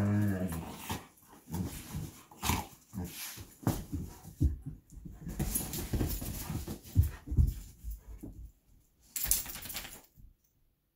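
Two Belgian Malinois play-fighting on a leather couch: a low growl at the start, then irregular scuffling, pawing and thumps on the upholstery with occasional growls, and a loud scramble about nine seconds in.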